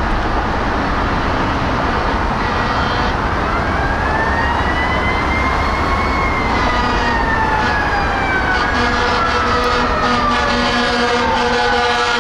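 Federal Q mechanical siren on a fire truck winding up slowly to a high wail about six seconds in, then winding down, over the truck's engine noise.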